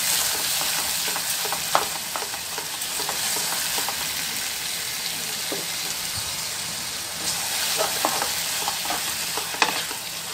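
Marinated minced meat and onions sizzling as they fry over a high flame in a nonstick pot, stirred and scraped with a wooden spatula. A steady sizzle, with a few sharp taps of the spatula against the pot.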